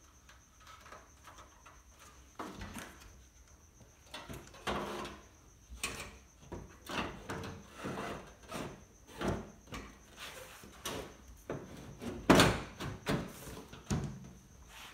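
The sheet-metal front cover of an LG WD12020D front-loading washing machine being handled and fitted back onto the cabinet: an irregular series of knocks, rattles and clicks, the loudest knock about twelve seconds in.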